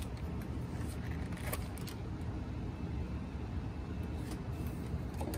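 A steady low rumble, with a few faint clicks and rustles from handling small wiring parts and a plastic package, about a second and a half in and again near four seconds.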